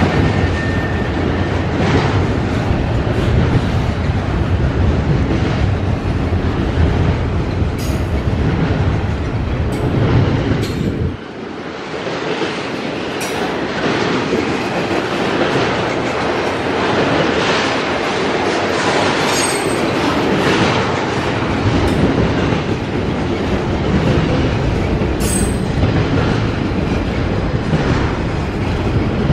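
Double-stack intermodal freight train rolling past: a steady rumble and clatter of steel wheels on the rails. The low rumble drops away suddenly about a third of the way through and builds back. Later there are a couple of brief high wheel squeals.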